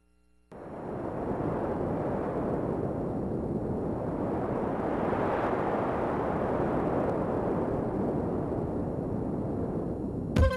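A steady rushing, rumbling noise with no pitch, which starts suddenly about half a second in after near silence. Music with a sharp attack cuts in just before the end.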